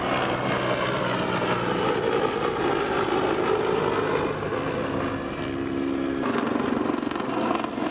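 Mi-35M attack helicopter flying past: loud, steady rotor and turbine engine noise. The pitch of its whine drops about six seconds in.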